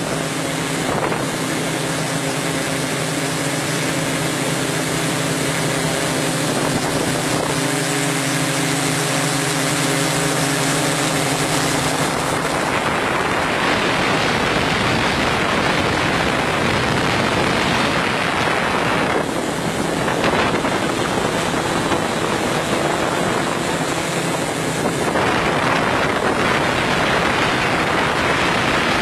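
Camera-carrying RC helicopter's motor and rotor running steadily, heard from on board. A steady hum for about the first twelve seconds gives way to a louder rushing hiss of wind and rotor noise.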